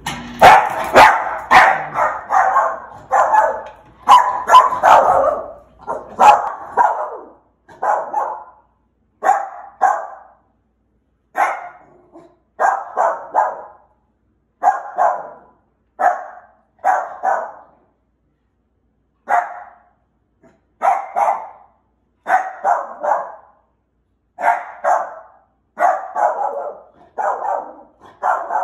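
Small dog barking repeatedly in reaction to the doorbell. A fast run of barks comes first, then single and paired barks about a second apart, with a short pause a little past the middle.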